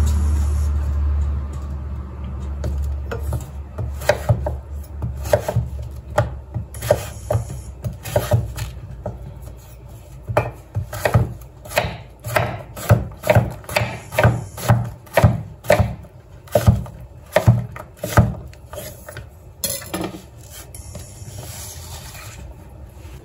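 Chef's knife chopping a zucchini on a wooden cutting board: sharp knocks of the blade on the wood, sparse at first, then a steady run of about two a second, with a scrape near the end. A low rumble fades out in the first second or two.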